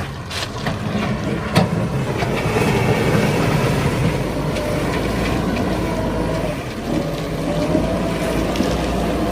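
Backhoe loader's diesel engine running steadily under load while digging and loading soil, with a couple of sharp knocks about half a second and a second and a half in, and a faint whine around the middle.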